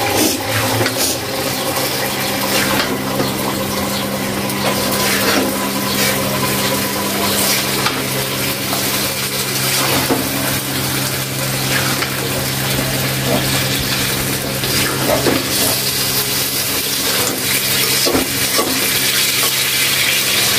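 Marinated chicken sizzling and frying in spice paste in a metal kadai, with a metal spatula stirring and scraping against the pan in scattered clicks. A steady low hum runs underneath.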